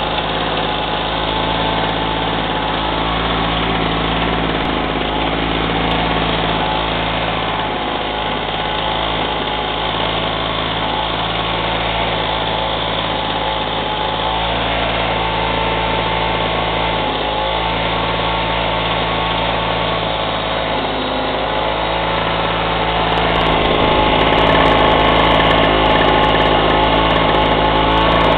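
VéloSoleX 2200's 49 cc single-cylinder two-stroke engine running steadily on a test run, getting a little louder near the end.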